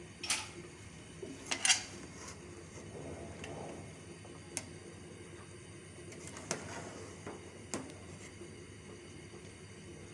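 Metal slotted spoon stirring freshly steamed rice in a large aluminium pot: soft scraping with a few sharp clinks of spoon on pot, the loudest about two seconds in, over a low steady background hum.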